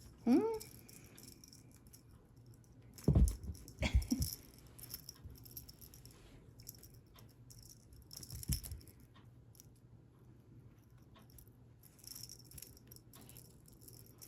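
Cat toy rattling and jingling in scattered bursts as it is shaken, with a few dull thumps a few seconds in.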